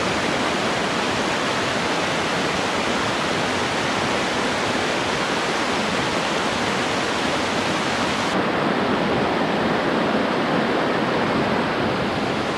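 Rapidan River headwaters, a small mountain trout stream, rushing steadily over rocks and small cascades. The sound turns slightly duller about eight seconds in.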